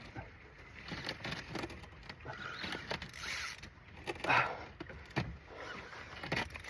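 Fishing reel working under the load of a hooked catfish during the fight, whirring in uneven spells.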